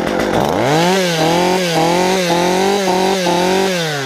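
Two-stroke chainsaw revved hard: the engine climbs quickly to high speed about half a second in, is held near full throttle with small repeated blips, then winds back down near the end.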